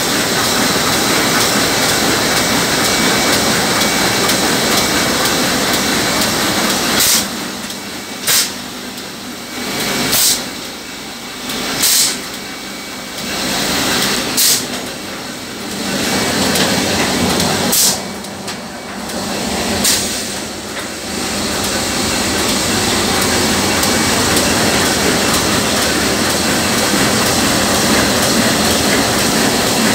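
Mitsubishi 1E-4 four-colour sheet-fed offset printing press running with a loud, steady mechanical clatter. Between about 7 and 21 seconds the running noise dips several times, and sharp clicks or knocks cut through.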